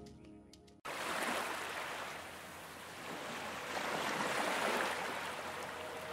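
Soft background music fades and cuts off abruptly about a second in, leaving a steady rushing outdoor ambience like the wash of street traffic. Sustained musical tones come in faintly near the end.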